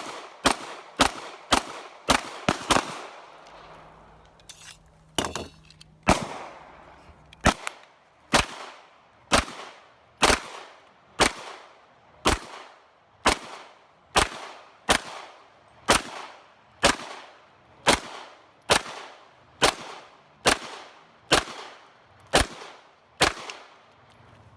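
Gunshots on a firing range: a quick string of about seven shots in the first three seconds, a short pause with a few spaced shots, then a steady series of single shots about one a second.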